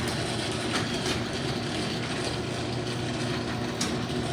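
Access Master garage door opener running noisily, a steady motor hum with a few clicks as the door travels.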